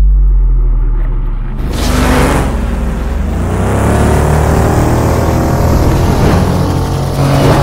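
Cinematic sound effects of a futuristic motorbike: a deep steady drone, a whoosh about two seconds in, then an engine whine that rises in pitch, with another whoosh near the end.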